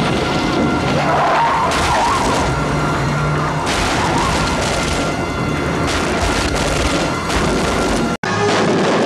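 A car crashing through a fence and tumbling down a dirt slope, with repeated crashing impacts, under a TV-series music score. The sound breaks off for an instant near the end.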